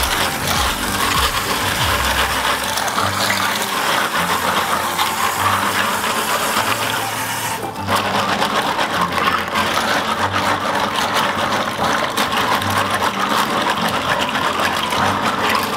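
Clam shells rattling and grinding against each other and the plastic colander as hands scrub a batch of clams, with tap water running into the sink until about eight seconds in.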